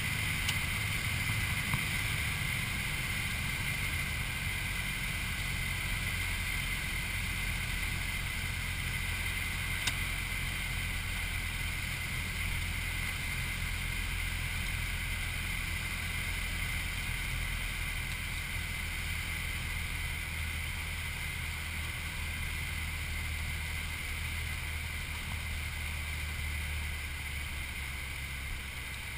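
Light single-engine piston airplane's engine and propeller droning steadily, heard from inside the cabin on final approach and landing. The drone eases slightly quieter toward the end.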